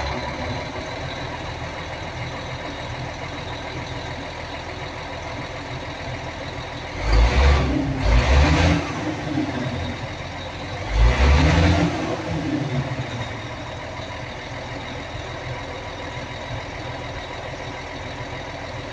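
Caterpillar 966H wheel loader's C11 diesel engine running just after start-up on a swapped-in ECM, settling at idle. The engine sound swells twice, briefly, about seven and eleven seconds in.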